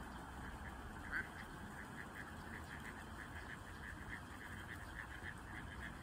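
Eastern spot-billed ducklings peeping faintly in a rapid, even run of short calls, about five a second, with one louder peep about a second in, over a low steady hum.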